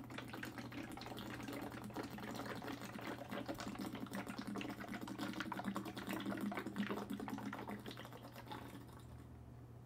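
Close-miked eating and drinking sounds: a dense run of quick wet mouth clicks and swallows, easing off near the end.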